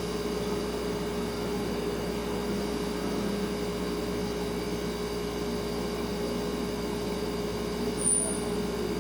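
Refrigerator running with a steady hum: one constant mid-pitched tone over a low drone and a soft hiss. A brief high-pitched chirp sounds about eight seconds in.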